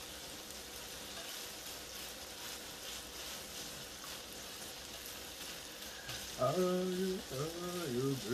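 Sliced sausage sizzling and frying in a nonstick skillet, a steady hiss with light crackling. About six seconds in, a voice starts humming a tune over it, louder than the frying.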